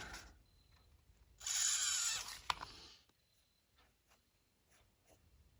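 Handling noise: a rustling scrape lasting about a second and a half, with a sharp click near its end, then a few faint ticks.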